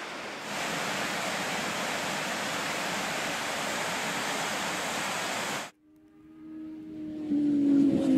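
Steady rush of a waterfall's falling water, a little louder about half a second in, that cuts off abruptly near the end. A steady pitched sound then fades in and grows loud.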